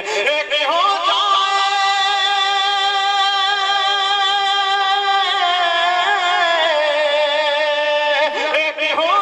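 A man singing an Urdu naat in melodic tarannum style, drawing out long held notes with a wavering pitch. Quick pitch slides come about half a second in and again near the end.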